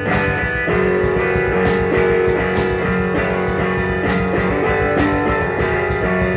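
Rock music: a drum kit played to a steady beat, with sharp hits about twice a second, over electric guitar chords.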